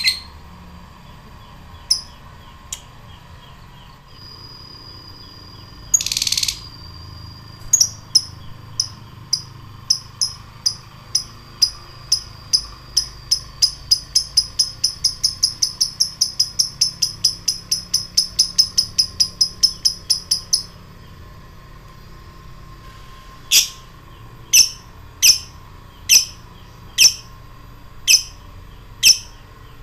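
Blue masked lovebird giving a long run of short, sharp ticking chirps (the 'ngetik' call) that speeds up over about thirteen seconds. After a pause it gives a slower series of louder calls, about one a second.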